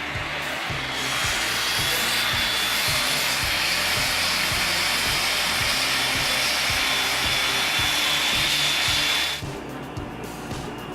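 Angle grinder running at speed for about eight seconds, a steady high whine over a loud hiss, cutting off suddenly near the end. Background music with a steady beat underneath.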